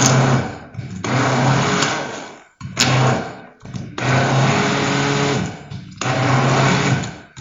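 Hand-held immersion blender whirring through thick eggplant paste, blending in olive oil to emulsify it. It is switched on and off in short runs of one to two seconds with brief pauses between.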